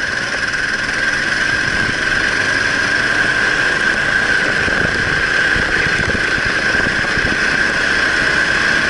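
Kart engine running at speed on track, heard through an onboard camera's microphone along with wind and road noise, with a steady high whine.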